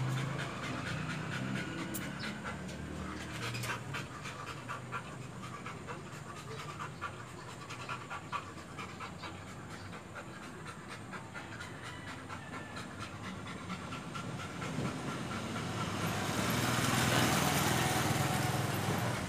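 A dog panting rapidly over the steady hiss of a small oxy-acetylene brazing torch flame. The hiss swells louder for a few seconds near the end.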